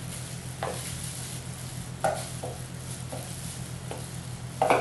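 A spatula scrapes a mixing bowl as wet meatloaf mix is tipped out onto ground meat: about six short, irregular scrapes and knocks over a steady low hum, the loudest near the end.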